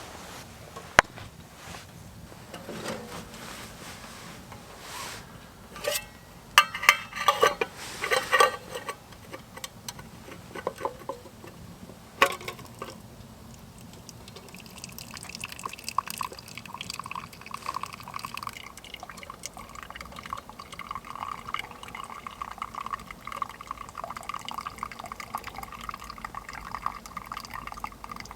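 A few clanks and clatters, then pine needle tea pouring steadily into a cup for the second half.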